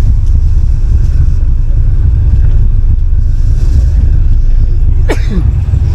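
Wind buffeting the microphone on an open ferry deck, a loud, uneven low rumble, with one short sound falling in pitch about five seconds in.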